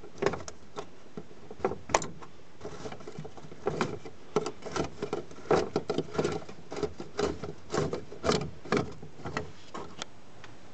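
Fuel pump module's locking ring nut on a Nissan AD fuel tank being unscrewed by hand after being broken loose: a string of irregular clicks, scrapes and rubs as the ring turns on the tank flange.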